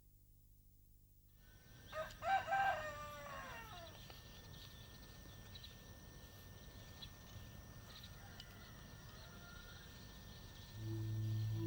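A rooster crowing once, a loud drawn-out call of about a second and a half that falls away at its end, over a faint rural background. Steady low music comes in near the end.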